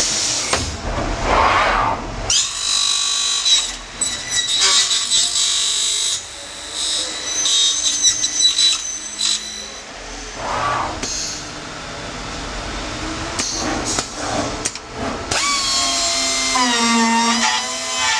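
CNC corner cleaning machine cutting the weld bead off a welded PVC window frame corner: high spindle whines that rise and fall in pitch as the cutters spin up, cut and wind down, with several short sharp clicks along the way.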